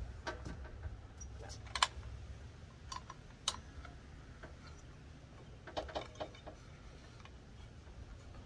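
Scattered sharp metal clicks and clinks as a blade wrench tightens the arbor bolt on a DeWalt circular saw, the spindle lock held in. There is a click about two seconds in, a couple more around three seconds, and a small cluster near six seconds.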